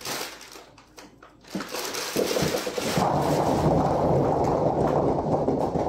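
Rustling and a few light clicks, then a loud, steady rushing rumble starts about two seconds in and keeps on.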